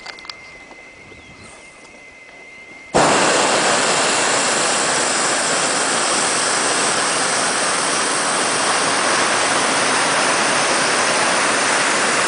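Hot-air balloon's propane burner firing: a loud, steady roar that starts suddenly about three seconds in.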